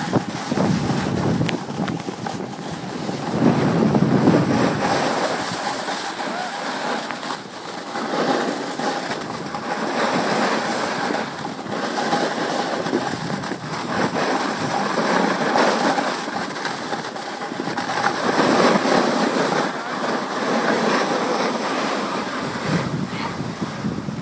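Edges hissing and scraping over hard-packed, tracked snow while sliding downhill, swelling and fading every few seconds, with some wind on the microphone.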